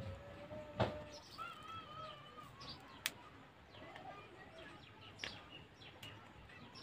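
Faint birds chirping, a few wavering whistled calls, with two short sharp clicks, one about a second in and one about three seconds in.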